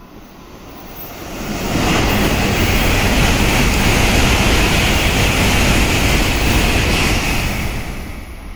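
N700-series Shinkansen bullet train passing through the station at speed on the track beside the platform: a loud rush of air and wheel noise that builds over about a second, holds for about six seconds, then fades away.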